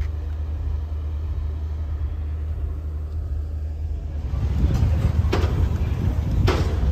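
A ferry under way on open water: a steady low engine rumble with wind rushing over the microphone. The rush grows from about four seconds in, with two sharp gusts near the end.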